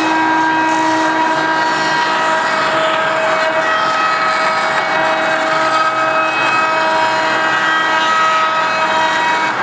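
CNC router spindle running and milling through plywood: a steady whine of several held tones over the hiss of the bit cutting wood.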